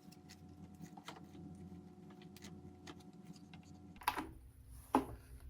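Faint, irregular light clicks and taps of small parts being handled, with two louder clicks at about four and five seconds.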